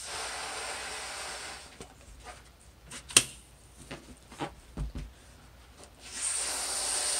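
A person blowing hard into a balloon, two long forceful breaths about five seconds apart. In between come the short rubs and squeaks of the balloon's neck being stretched and knotted, with one sharp click about three seconds in.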